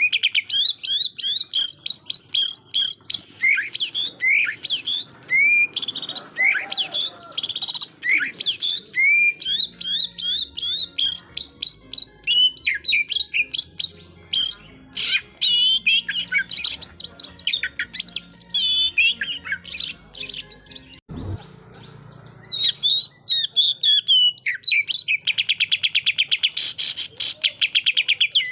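Oriental magpie-robin singing a fast, varied song of whistled glides, sharp chirps and rapid trilled bursts, the loud rapid-fire "tembakan" phrases used to provoke rival males. A single brief knock sounds about three-quarters of the way through.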